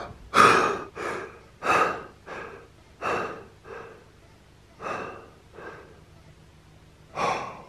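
A man breathing hard in gasps, about nine breaths, loud at first and then softer and further apart, as he catches his breath after waking with a start from a nightmare.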